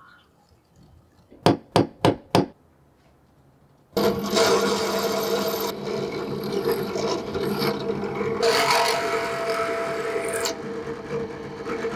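Four quick sharp taps, then a bench drill press starts and runs steadily, its motor humming while the bit cuts through a thin metal ring plate.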